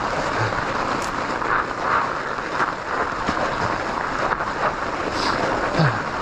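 Fat bike's studded tires rolling fast over ice and hard snow on a steep descent, a steady rushing and grinding noise mixed with wind on the microphone, with a few brief louder rattles.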